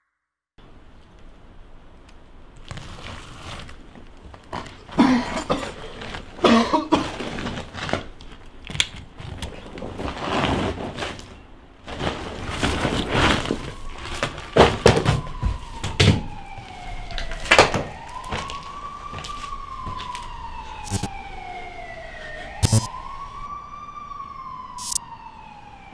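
Police siren wailing, rising and falling slowly, which comes in a little past halfway. Before it, scattered knocks, clatter and scrapes, like movement over rubble.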